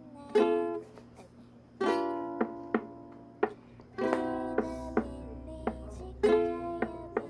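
Ukulele played by hand: four strummed chords about two seconds apart, each left to ring and fade, with single plucked notes in between.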